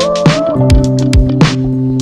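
Background music: a drum beat under held chords.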